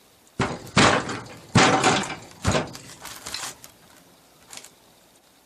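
A handful of sharp knocks and clanks from tools and parts of a three-speed manual transmission being worked on, the loudest about a second and a half in, fading out after about three and a half seconds, with one light tap near the end.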